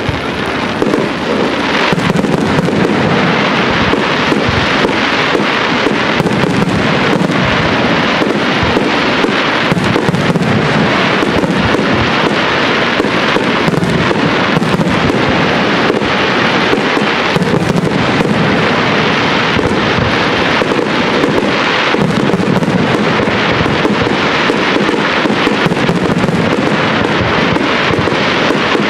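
Aerial fireworks shells launching and bursting in a dense, continuous barrage of bangs and crackling.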